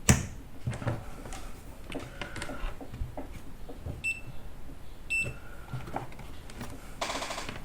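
Two short, high electronic beeps about a second apart, then a longer buzzier beep near the end, from bench test equipment while the laptop's DC jack is being checked, with small clicks of probes and handling.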